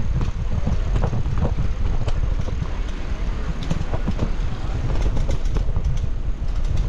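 Bicycle rattling over cobblestones, a steady low rumble full of irregular clicks and knocks, with wind buffeting the microphone while riding.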